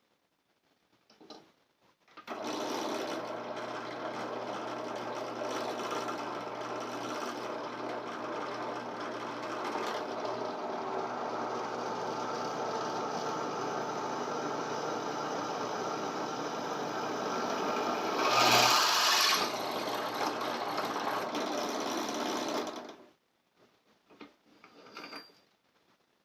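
Drill press motor running while a hole is drilled, starting about two seconds in and stopping about twenty-three seconds in, with a louder, harsher stretch about eighteen seconds in.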